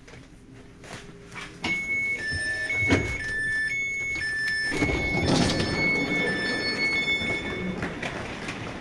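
Electronic two-tone warning beeps on a train, a high and a low tone alternating about twice a second, typical of a door-closing signal. A knock comes about three seconds in, and louder rumbling train noise builds from about five seconds in.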